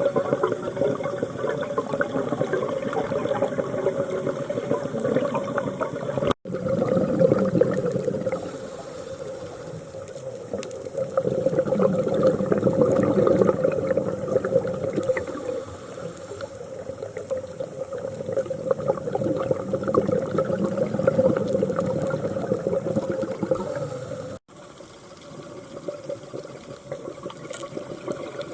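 Scuba diver breathing through a regulator underwater: a rushing, bubbling noise that swells and sinks in long, slow breaths. It cuts out abruptly twice, about six seconds in and again near the end.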